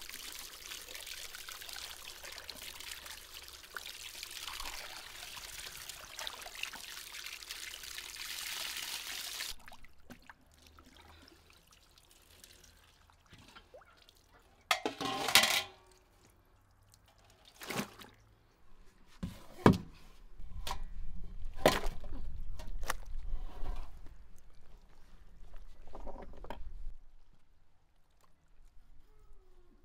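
Water pouring steadily from a hose onto beef tripe in a stainless steel colander while hands rub and rinse it; the pouring stops abruptly about ten seconds in. A few scattered knocks and thuds follow, the loudest about halfway through.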